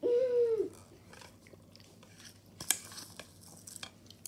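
A child's brief hummed 'mm' at the start, then scattered crunchy clicks and rustles, the sharpest about two and a half seconds in.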